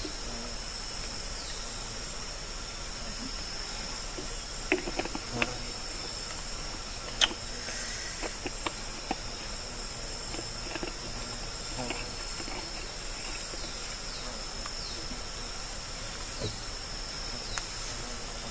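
Steady high-pitched chorus of rainforest insects, unbroken throughout, with a few faint scattered clicks and knocks.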